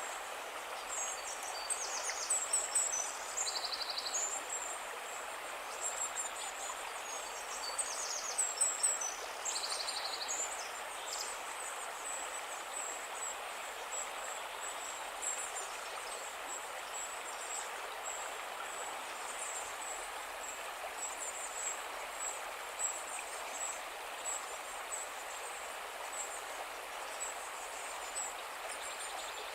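Calm river flowing with a steady rush of water, with small birds chirping and trilling over it, busiest in the first ten seconds or so and sparser after.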